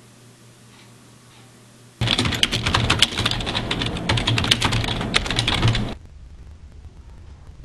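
Fast typing on a computer keyboard: a dense clatter of key clicks starts about two seconds in, after a faint steady room hum, and stops suddenly about four seconds later.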